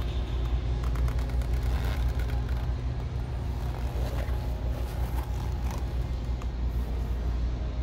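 A steady low droning hum, with faint scattered clicks and rustles throughout.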